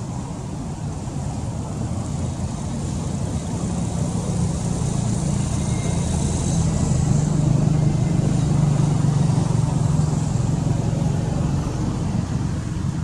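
A motor vehicle's engine droning steadily as it goes by, growing louder toward the middle and easing off near the end.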